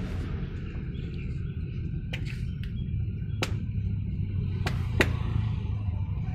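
Steady low road-traffic rumble with several sharp clinks or knocks from the food cart's cooking top, the loudest about five seconds in.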